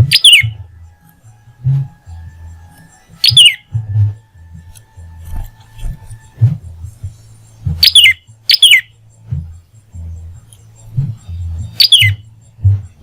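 A prenjak (prinia) gives five sharp, piercing calls, each a quick note falling steeply in pitch. Two of them come close together about eight seconds in. Under the calls runs background music with a low, pulsing beat.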